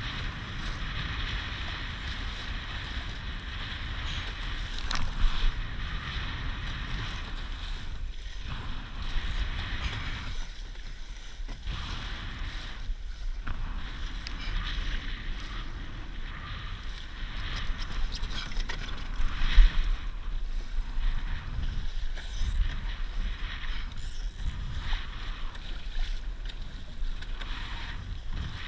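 Strong wind buffeting the camera's microphone, with water rushing and splashing along a Laser dinghy's hull as it sails fast through chop. Louder slaps of water and spray hit about five seconds in and again just before twenty seconds.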